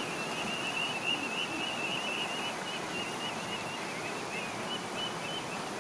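Shallow river flowing around boulders: a steady rushing of water, with a faint high chirping over it.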